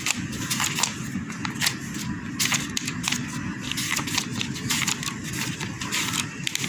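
Paper pages of a wiring-diagram book being leafed through and rustled, in quick irregular crinkles, over a steady low background rumble.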